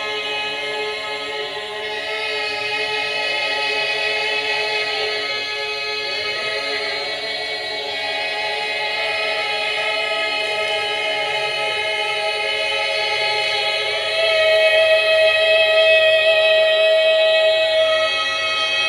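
A chorus singing many held notes at once in a dense, overlapping chord, with some voices sliding between pitches. The singers perform a computation by rock-paper-scissors (jakyo kenzan) while they sing. The singing swells louder about 14 seconds in, with one high note standing out.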